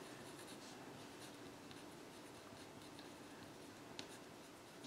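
A pen writing on paper: faint scratching strokes, with one small sharper tick about four seconds in.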